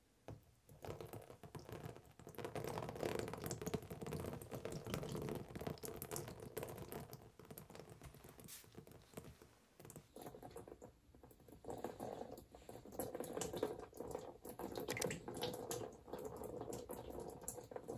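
Faint, irregular patter of thick acrylic paint pouring from a plastic cup onto a perforated metal grill pan and dripping through its holes onto the wet canvas below.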